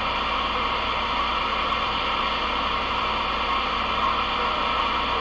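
Galaxy DX 33HML CB radio receiving on channel 31, its speaker giving a steady hiss of band static with no station coming through: the band is not open yet, as conditions haven't settled in.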